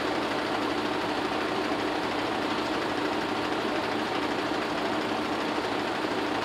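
An engine idling steadily, an even running sound that does not change in speed or loudness.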